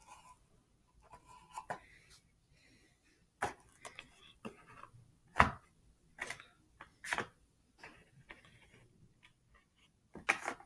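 Irregular light taps and clacks of a stack of trading cards being handled on a table. The sharpest knock comes about five and a half seconds in, and it goes quieter near the end.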